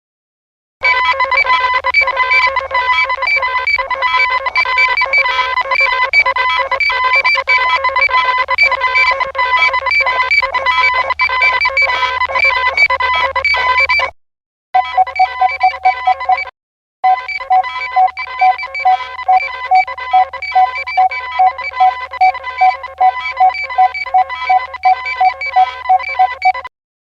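Synthesized science-fiction telemetry sound effect: rapid electronic beeping and trilling tones, like a ringing phone, over a low hum. It breaks off briefly twice about halfway through, and then returns on a different, lower tone.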